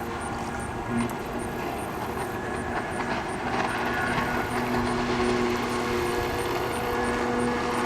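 Jet ski engine running steadily.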